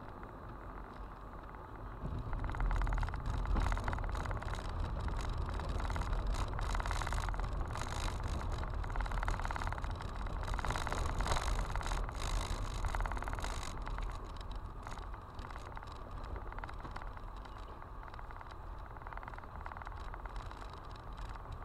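Car driving on an unpaved gravel road, heard from inside the cabin: a low tyre and road rumble with the crackle of loose stones under the tyres and against the underbody. The noise grows louder about two seconds in as the car comes onto the gravel, and eases somewhat after about fourteen seconds.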